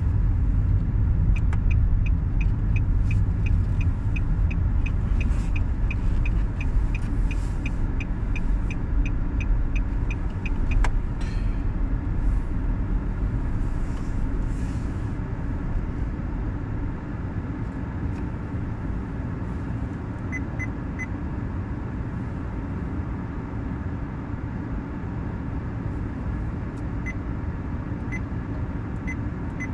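A car driving on an expressway: a steady low road and engine rumble that is louder in the first half and eases after about 16 seconds. A quick, light ticking, a few ticks a second, runs through the first ten seconds, and a single sharp click comes about eleven seconds in.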